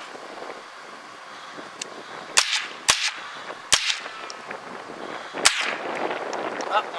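Four sharp .22 rifle shots, three in quick succession about two seconds in and a fourth roughly a second and a half later.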